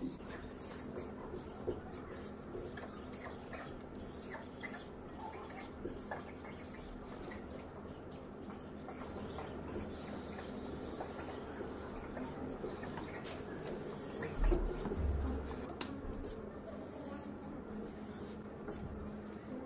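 Felt-tip marker scratching across paper on a wall in short, irregular strokes, over a faint steady room hum. A dull low bump comes about three quarters of the way in.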